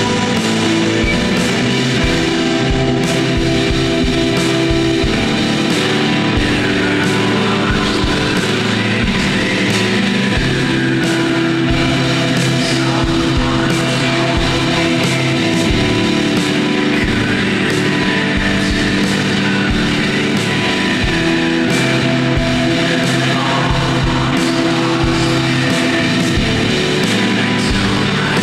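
Shoegaze noise-rock song: a dense, loud wall of fuzz-distorted guitars over steady drum hits.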